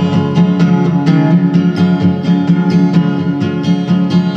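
Acoustic guitar strumming a steady rhythm in an instrumental break between the sung lines of a song.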